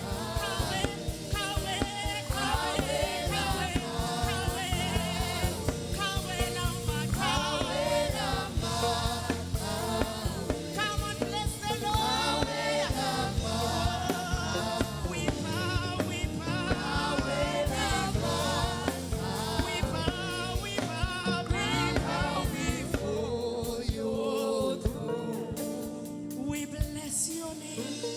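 Gospel worship music: voices singing over a band with drums and bass guitar. The singing fades near the end, leaving mostly the instruments.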